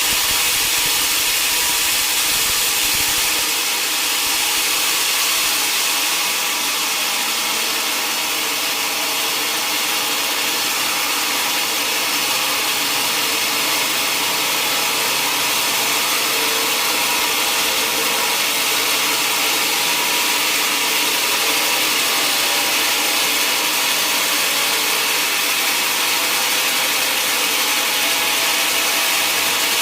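Sawmill saw cutting lengthwise through a mahogany log: a steady, loud hiss of blade through wood. A low rumble underneath stops about three and a half seconds in.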